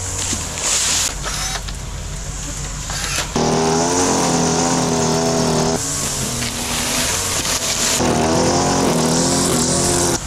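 Small engines of lawn power equipment running at high speed, with a steady engine pitch that wavers slightly. The level and pitch jump abruptly several times.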